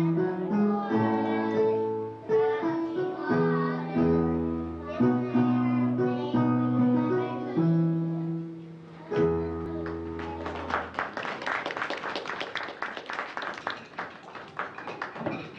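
Young children singing a song with instrumental accompaniment; the music ends about ten seconds in and audience applause follows.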